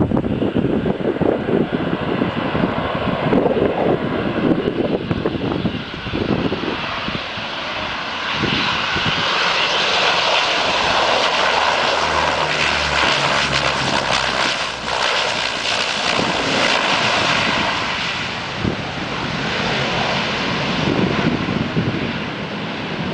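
De Havilland Canada Dash 8 turboprop landing: the engines and propellers build to a loud rushing whine as the aircraft touches down and passes, with a low propeller drone at its loudest, about ten to seventeen seconds in. The sound then eases off as it rolls away down the runway.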